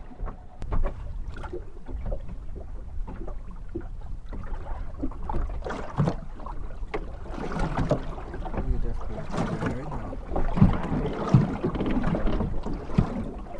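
Water slapping and splashing against the hull of a small open skiff rocking in the chop, with wind on the microphone. Irregular thumps of water on the hull come more often in the second half.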